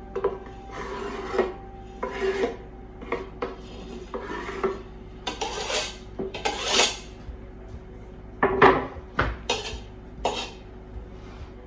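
Repeated short scrapes of a knife drawing chopped hard-boiled egg across a wooden cutting board into a stainless steel pot, with a few sharper clinks of metal on the pot near the end.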